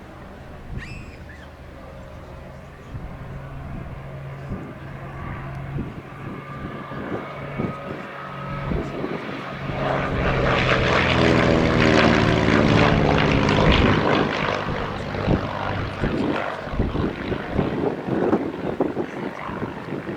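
North American Navion's piston engine (a Lycoming O-435 flat-six) and propeller as the aircraft flies past: the engine note grows louder, is loudest about halfway through with its pitch falling as the plane passes, then fades away. Wind buffets the microphone throughout.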